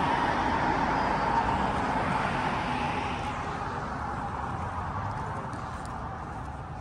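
A car going by on the road, its tyre and road noise loudest at first and fading away over about four seconds.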